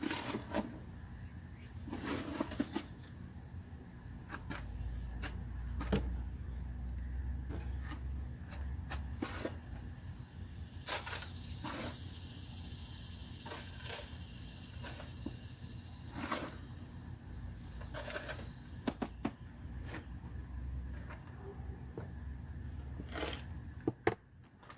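Scattered taps, knocks and scrapes of soil and sand being handled and scooped into plant pots, over a steady low hum.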